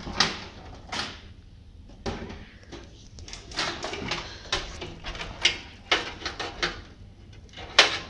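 Corsair CX430 power supply cables and connectors being handled and routed inside a steel PC case: irregular clicks, knocks and scrapes of plastic connectors and sheathed wires against the metal, with rustling in between and a sharp click near the end.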